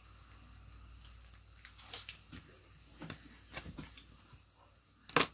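Trading cards and pack wrappers being handled: faint scattered rustles and light taps, with a sharper click near the end.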